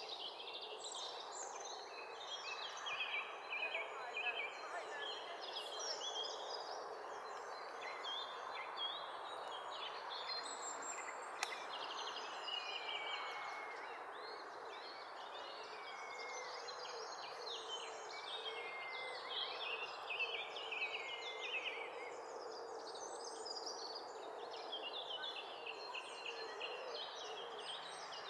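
Small birds chirping and singing in many quick high notes, with a few short falling whistles, over a steady low rush of background noise.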